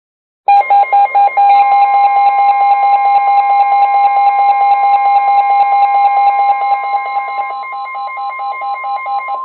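Several weather alert radios going off at once for a special marine warning: fast beeping alarms at a few different pitches over the steady 1050 Hz weather radio alert tone. It starts suddenly about half a second in, and the beeping turns choppier near the end.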